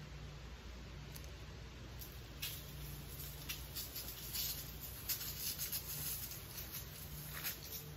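Granular homemade deer mineral mix (salts, dicalcium phosphate, dried molasses) pouring from a plastic canister onto bare dirt: a dry pattering hiss in uneven spurts, starting about two seconds in and growing busier toward the end.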